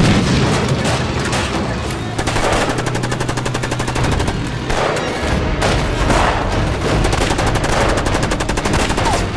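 A sidecar motorcycle blowing up with a loud blast, then long rapid strings of machine-gun and rifle fire, with motorcycle engines running underneath for the first few seconds.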